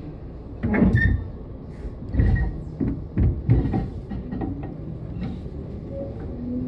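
Tobu 10030 series electric train: a run of clunks and knocks over a low steady rumble, then near the end a rising motor tone as the traction motors start to pull the train away.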